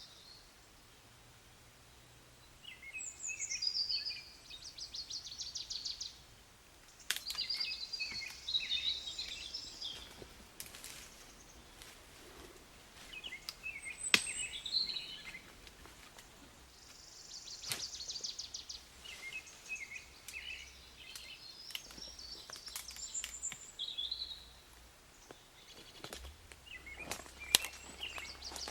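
Songbirds singing: chirps and fast trilled phrases repeating every few seconds, with a few sharp clicks or knocks mixed in.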